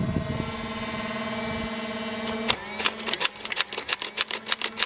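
Battery-powered toy dart blaster's motor whirring with a steady hum, then from about halfway a rapid run of mechanical clicks, several a second, as the blaster cycles and fires its darts.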